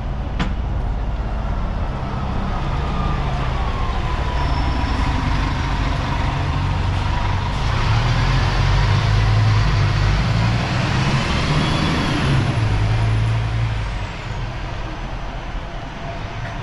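Double-decker sightseeing bus driving past close by, its engine rumbling loudest in the middle and dropping off about fourteen seconds in, with a whine that slides in pitch over it.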